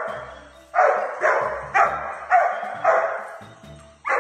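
A dog barking: five sharp barks in quick succession about half a second apart, then a short pause and one more bark near the end.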